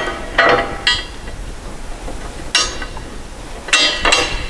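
A steel stalk-roller arm and its bolt clinking against the steel mount bracket while the arm is fitted: several sharp metal clinks with a short ring, a few around the first second, one past the middle and two close together near the end.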